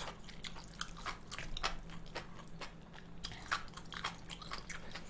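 Close-miked chewing of mala tang noodles: wet mouth noises and many short, irregular lip and tongue clicks.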